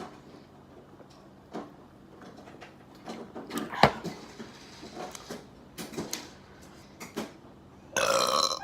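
Scattered light clicks and taps of handling, with one sharper knock about four seconds in. A short voice sound comes near the end.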